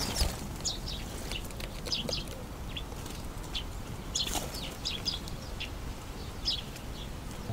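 Small garden birds chirping: many short, high chirps scattered throughout, over low background noise.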